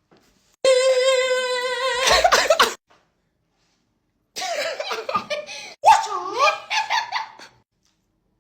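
A person's voice making a held, buzzy vocal sound effect for about a second and a half, then breaking into laughter. About four seconds in, more laughing and voiced noises follow for around three seconds.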